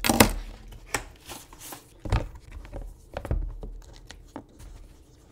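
Unpacking a tablet folio case from its cardboard box: packaging rustling and crinkling, broken by several sharp taps and knocks on the desk, the loudest right at the start and others about one, two and three seconds in.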